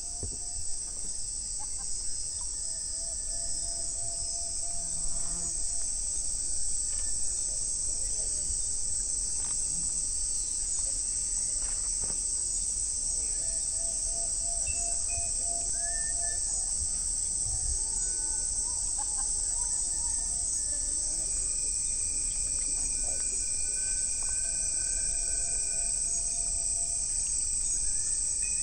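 A steady, high-pitched insect chorus, with short whistle-like calls here and there and a low rumble underneath.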